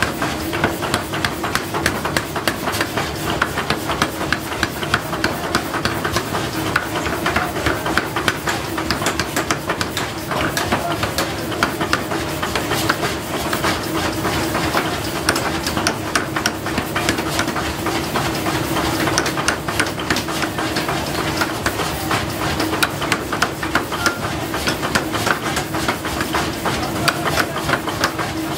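Power hammer rapidly pounding a red-hot steel block held in tongs, a fast, even run of blows, with a steady machine hum underneath.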